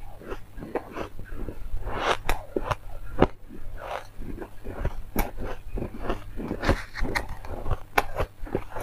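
Refrozen white ice being bitten and chewed up close: a quick, irregular run of crisp crunches and crackles.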